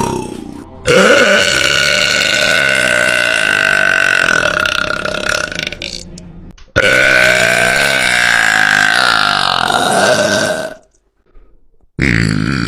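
A woman's very loud, long burps: two drawn-out belches of about five and four seconds, each fading out at its end, and a third one starting near the end.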